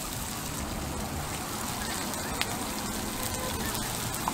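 Bean sprouts and greens sizzling on a hot flat-top griddle as they are stir-fried with metal scrapers, a steady hiss with a couple of sharp clicks of steel scraper against the iron plate.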